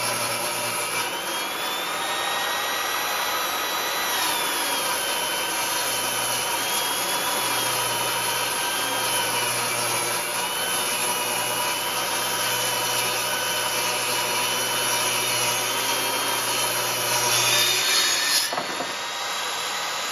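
Table saw ripping a 2x6 lengthwise, its blade whine wavering in pitch under load. Near the end it grows louder, then the cutting sound gives way to the saw running on unloaded as the board pops up off the blade.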